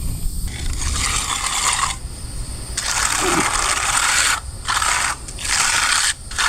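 A hand tool scraping across a concrete surface in repeated strokes, each about a second long with short breaks between them.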